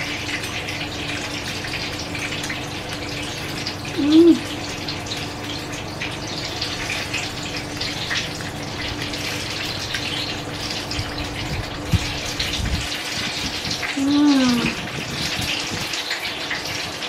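Steady hissing background noise with a low, even hum. A person hums a short 'mm' with her mouth closed twice while eating, about four seconds in and again near the end.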